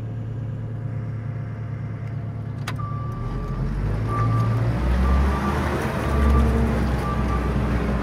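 Diesel engine of a 6-ton JCB loader heard from inside its cab, running steadily and then working harder from about three seconds in as it lifts and moves a heavy bucket of muck. From that point a reversing alarm beeps, about once a second.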